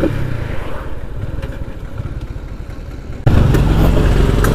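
Mahindra Centuro motorcycle's small single-cylinder engine running as the bike rides along. About three seconds in, the sound jumps abruptly louder and fuller.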